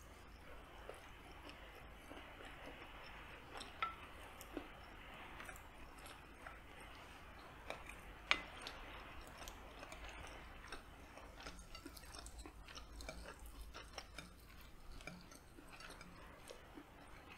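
Close-miked eating sounds: soft chewing, with a wooden spoon and fork clicking and scraping against a glass plate in many small taps and one sharp click about eight seconds in.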